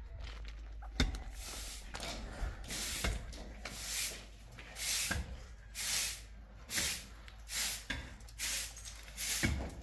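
Rhythmic rasping strokes, a little more than one a second, starting a couple of seconds in, like a tool scraping or rubbing back and forth. Before them there is a steady hiss and one sharp knock about a second in.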